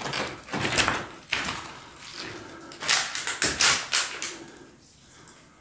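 Footsteps scuffing and crunching on loose stone and grit, in two short runs of steps, then quieter near the end.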